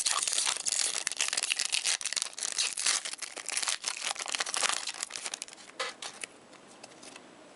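Plastic hockey card pack wrapper being torn open and crumpled: a dense crinkling rustle that thins out after about five seconds and stops a little after six seconds in.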